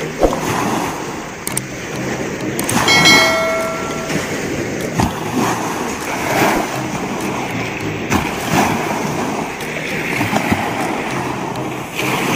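Shallow seawater sloshing and splashing around a person wading, with scattered knocks and clicks from handling. About three seconds in, a short ringing chime sounds for about a second.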